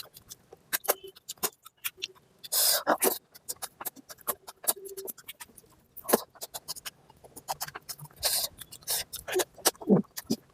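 Close-miked eating sounds from a mouthful of oily mutton fat curry and rice: wet chewing and lip smacks as a rapid, irregular run of clicks, with two longer, louder noisy bursts about two and a half and eight seconds in.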